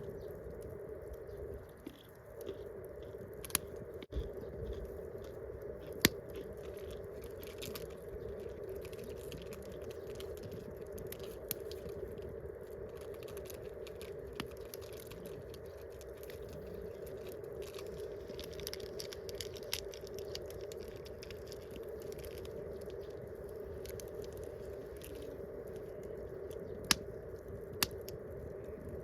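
Wood campfire crackling, with scattered small snaps and a few sharp, loud pops over steady background noise.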